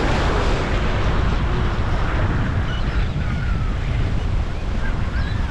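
Steady wind rumbling on the microphone over waves breaking and washing against the rocks of a jetty.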